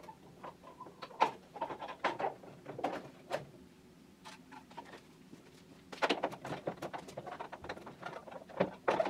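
Plastic end caps being fitted onto the ends of a Volvo 850/V70 load cover roll: a scatter of small plastic clicks, knocks and scrapes from handling, in two spells with a quieter stretch in the middle.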